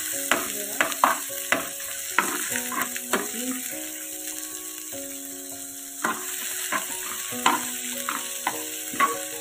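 Chopped onions, dried red chillies and tomato slices sizzling in oil in a nonstick pan while a ladle stirs them, scraping and knocking against the pan about once or twice a second, with fewer knocks around the middle.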